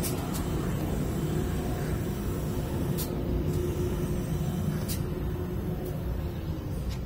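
Steady low engine rumble with a faint tone in it that drops slightly in pitch near the end, and a few brief sharp clicks.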